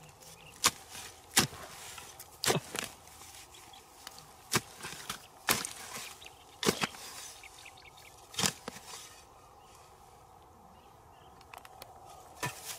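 A metal-bladed spade chopping and prying into damp earth and grass roots: a string of sharp chops, roughly one a second, with a pause of a few seconds near the end before a couple more.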